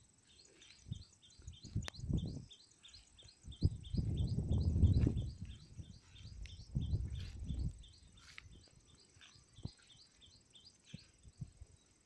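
Wind buffets the microphone in irregular low gusts, loudest about four to five seconds in. Under it a bird repeats a short rising high chirp about three times a second. A single sharp click comes about two seconds in.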